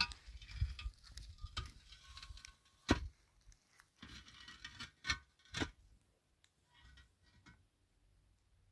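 Irregular light knocks and clinks, some ringing briefly, as of objects being handled. They are busiest in the first six seconds, with a few sharper knocks near three and five seconds, then thin out to a few faint ticks.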